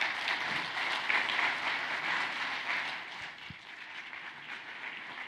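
Audience applauding, easing off a little after about three seconds.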